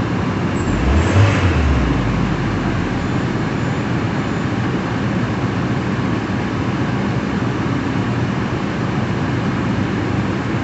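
Peugeot 406 coupé engine running cold just after a timing-belt replacement, with a knock coming from it. A brief low rumble swells about a second in.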